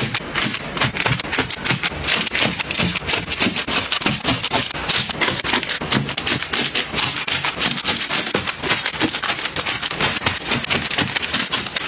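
A steady run of quick clicks, taps and light rustles, several a second, from products and containers being handled and set down while organizing.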